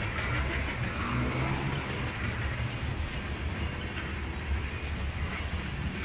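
Freight train of railroad tank cars rolling past at close range: a steady rumble of wheels on the rails.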